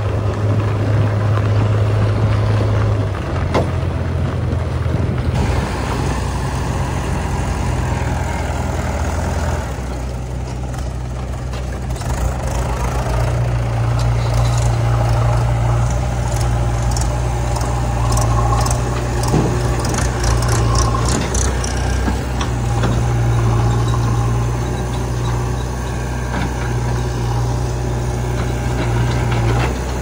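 Diesel engine of a JCB 3DX backhoe loader running steadily, its low drone shifting in pitch a few times, with a Mahindra 475 DI tractor's diesel engine running alongside in the later part. Light metallic rattling comes and goes near the middle.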